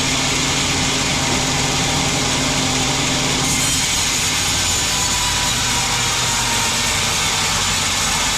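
Sawmill band saw cutting through a log: the steady rasp of the blade in the wood over the machine's hum. About three and a half seconds in, the hum's low tones drop away and the cutting noise turns brighter.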